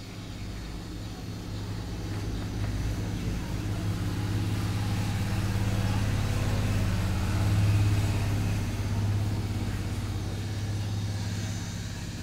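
Handheld hot air gun running: a steady hum from its blower fan with a rush of air, held close to the phone's screen to heat it and soften the display adhesive. It grows louder over the first few seconds.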